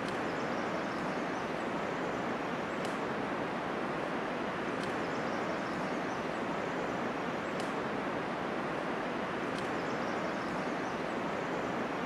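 Steady rush of running water, with a faint click every two to three seconds.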